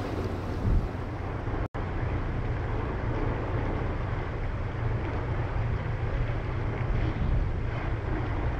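Steady low rumble of a 1000-ton Japan Coast Guard patrol vessel's engines running alongside the quay, with wind buffeting the microphone. The sound cuts out for an instant just under two seconds in.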